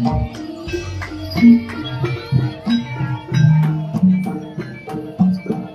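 Live East Javanese jaranan gamelan music: sharp drum strokes at a quick, uneven beat over ringing pitched notes.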